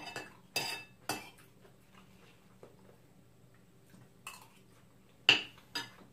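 Metal fork clinking and scraping against a china plate while eating. About three clinks come in the first second, then a pause, then a couple of louder clinks near the end.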